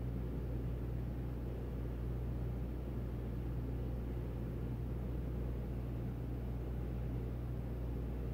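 Steady low machine hum that stays the same throughout, with nothing else standing out.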